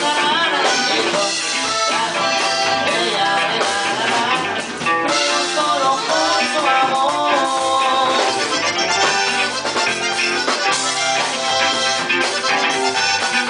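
A live band playing, with an accordion carrying the melody over a drum kit and electric guitar.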